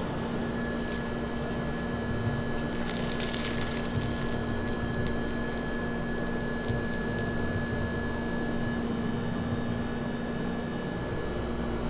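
Steady hum of running machinery with a faint high whine. About three seconds in, a second of crisp crackling as a cruffin's flaky laminated crust is torn open.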